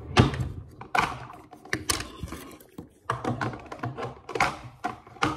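Irregular knocks and clicks of objects being handled and set down on a tabletop close to the microphone, with rustling between them. The loudest knock comes just after the start.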